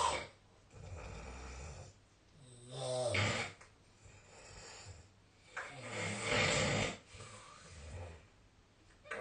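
A sleeping person snoring, with loud snores about every three seconds and quieter breaths between them.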